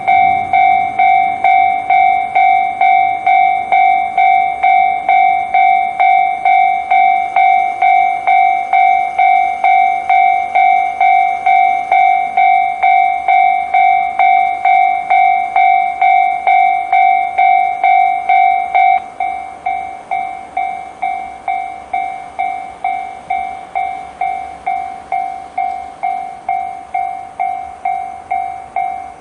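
Japanese level-crossing warning alarm sounding the JR standard electronic bell tone, a bright ding repeated about twice a second. About 19 seconds in it drops to a quieter, shorter strike and carries on at the same pace.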